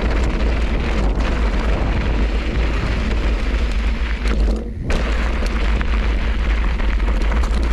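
Wind buffeting the camera microphone of a bike rolling fast down a rocky gravel trail, a heavy rumble with tyre and gravel noise mixed in, easing off briefly about halfway through.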